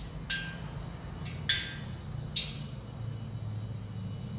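A few light clinks of a ceramic bowl against a stainless steel tray while flour is sprinkled over crab pieces, some with a brief ring, over a steady low hum.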